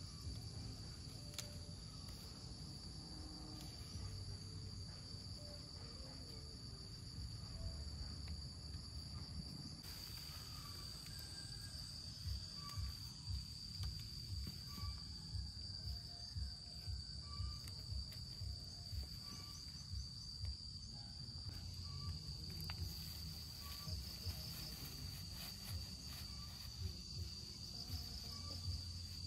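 Insects droning in one steady high-pitched note. About twelve seconds in, a run of dull low thumps starts, a little under two a second, and goes on to near the end.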